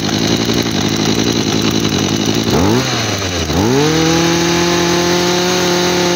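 Makita 26 cc two-stroke brush-cutter engine idling, then revved: a short rise about two and a half seconds in, a brief dip, then a climb to high speed that is held steady. The seller reckons this engine runs fairly well.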